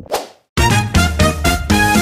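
A short swoosh, then a moment of silence, then outro music starts about half a second in: a pitched tune with a steady beat.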